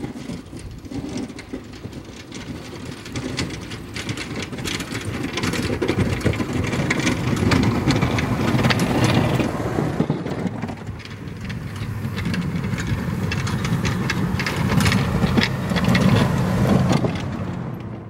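Full-size pickup truck driving past on a snow-packed road: its engine running while the tyres crunch and crackle over the packed snow. The sound builds to a peak as it passes and swells again near the end.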